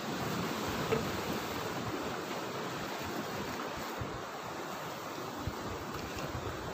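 Sea waves washing steadily against the rocks of a breakwater, with wind gusting on the microphone.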